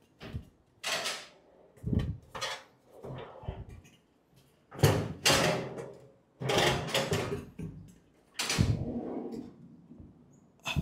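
Steel filing-cabinet drawer being pulled up and out of the cabinet body: sheet metal scraping and knocking against sheet metal in a series of short bursts.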